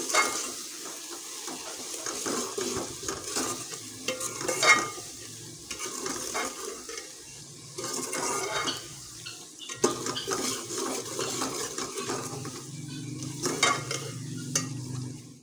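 Onion, tomato and spice masala sizzling as it fries in a metal pot, while a spoon stirs it, scraping and clinking against the pot at irregular moments.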